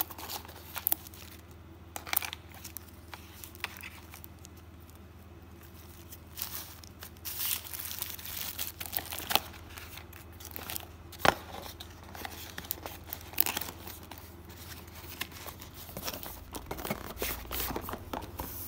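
Cardboard and paper packaging of a smartphone box crinkling and rustling as the inner tray and paper inserts are handled, with irregular sharp clicks and taps. There is a quieter pause a few seconds in, and the loudest snap comes about eleven seconds in.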